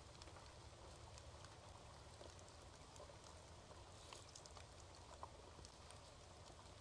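Near silence: faint steady outdoor background hiss with a low hum and a few scattered faint ticks.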